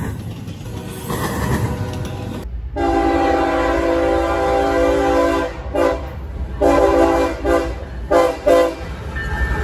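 A freight train of double-stack well cars rumbles past for the first couple of seconds. About two and a half seconds in, an approaching diesel freight locomotive sounds its air horn, one long blast followed by several shorter ones, over the low rumble of the train.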